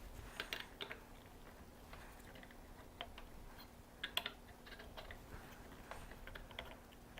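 Faint, irregular light clicks and taps as a knife blade is set and adjusted in a metal knife-sharpening clamp. The loudest is a quick double click about four seconds in. A faint steady hum sits underneath.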